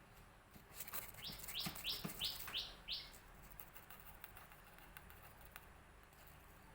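Five quick, high-pitched chirps in a row about a second in, with light clicks and taps around them.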